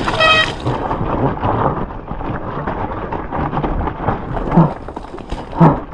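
Strong wind rumbling on the microphone over the rushing noise of a mountain bike descending a wet, muddy trail. A short high-pitched squeal comes right at the start, and two short grunts come near the end.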